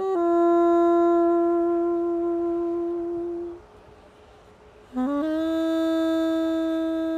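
Slow music on a wind instrument: one long held note that fades out after about three and a half seconds, a short pause, then a second note that slides up into pitch and is held.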